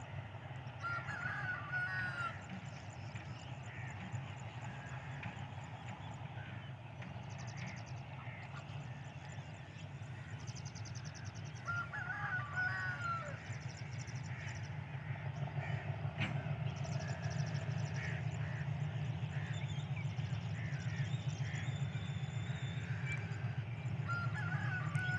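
Low, steady rumble of an approaching diesel-electric locomotive, slowly growing louder, with a bird calling three times over it, about ten seconds apart.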